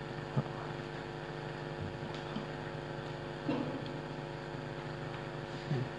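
Steady electrical hum from the microphone and sound system. A faint click comes about half a second in, and two soft, brief sounds come around the middle and near the end.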